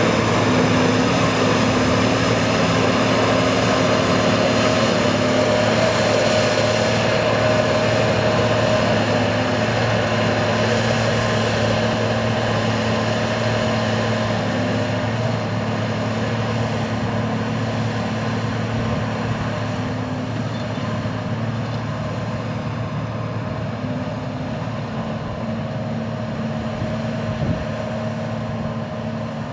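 Hycat low-ground-pressure tracked drilling rig driving over grass, its engine running at a steady note that fades slowly as the rig moves away.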